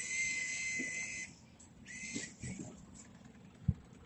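Skill-game bill acceptor drawing in a banknote: a steady high-pitched whirring for just over a second, a shorter whir about two seconds in, then a low thump near the end.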